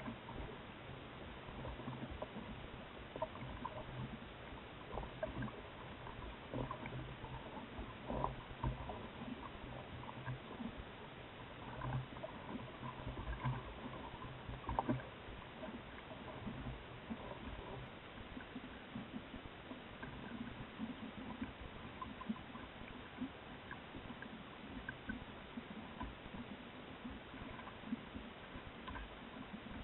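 Choppy water lapping and slapping against a small boat's hull close to the microphone, with scattered knocks and splashes.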